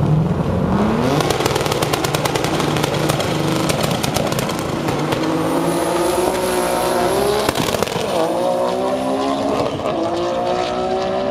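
Drag car's engine held at high revs on the start line with a rapid crackling, then launching and accelerating down the strip. Its pitch climbs, drops back at a gear change, then climbs again.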